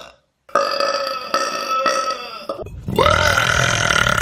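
A person burping twice: one long burp starting about half a second in and lasting about two seconds, then after a short break a second long burp that is still going at the end.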